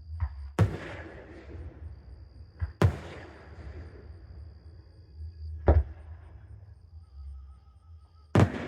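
Aerial fireworks shells bursting overhead: four loud bangs about three seconds apart, each trailing off in an echo.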